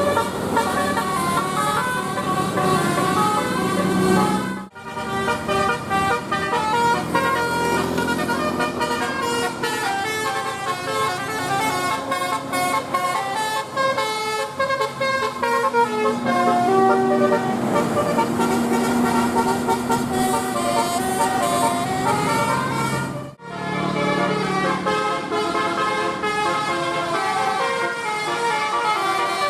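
Bus 'telolet' horn, a set of air horns playing tunes note by note, the pitch stepping up and down like a melody. It cuts out briefly twice, about 5 seconds in and again about 23 seconds in.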